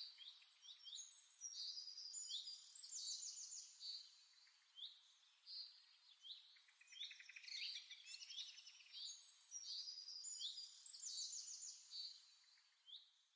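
Faint songbird chirps, quick trills and short downward-sweeping calls, with the same run of calls coming round again about six seconds later, as in a looped birdsong track.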